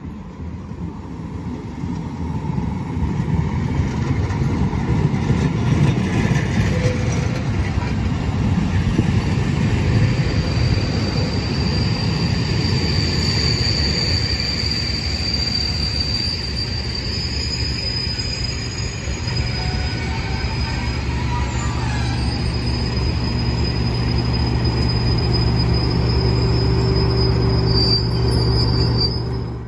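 Loco-hauled test train rolling by: coaches clattering over the rails, with a thin high wheel squeal in the middle and again just before the end. Over the last third the steady low note of a Class 37 diesel locomotive's English Electric V12 engine grows louder as it passes close.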